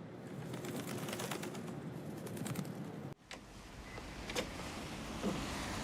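Background ambience with many light clicks and ticks, cutting abruptly about three seconds in to a quieter ambience with a few isolated clicks.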